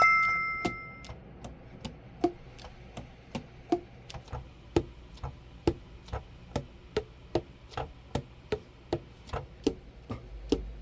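Tenor saxophone keys tapped shut over and over, about two to three a second, each pad closing on its tone hole with a short click and a low pitched pop, as when checking pad seating during a setup. A bell-like ding sounds at the very start.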